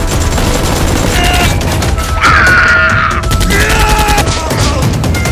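Rapid gunfire sound effects, dense and continuous, over background music, with a man yelling about two seconds in.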